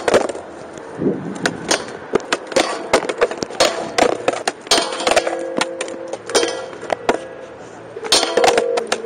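Skateboard attempting smith grinds on a round metal flat bar: a run of sharp knocks and clangs as the board pops, the trucks strike and grind along the rail, and the board lands on concrete.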